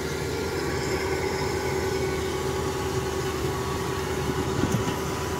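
Kubota rice combine harvester running steadily at close range as its header and reel cut a path through standing rice. The engine's even hum carries a steady tone throughout.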